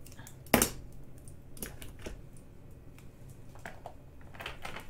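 Handling sounds of diamond painting drill bags and small plastic containers: light clicks and taps, with one sharper click about half a second in and a few softer ones after.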